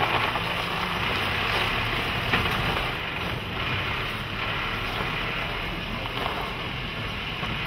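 Mercedes-Benz Unimog U 5023 truck's four-cylinder diesel engine running steadily as the truck drives slowly over gravel.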